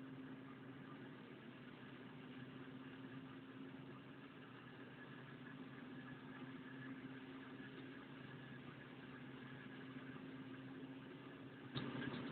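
A machine or engine running steadily at idle, a faint even hum. There is a short sharp knock near the end.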